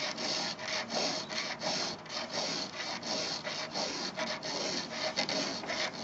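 Round chainsaw file rasping across a chisel-tooth saw chain's cutter in quick, repeated push strokes, sharpening the tooth's cutting edge.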